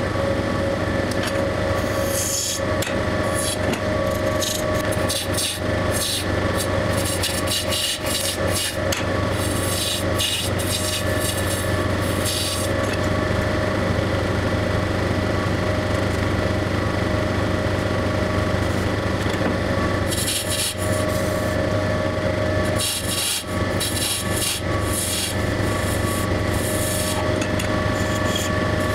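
A long metal turning tool scraping plaster off a mould spinning on a turning wheel, in rough scraping spells over the wheel's steady motor hum. The scraping stops for several seconds in the middle and resumes later.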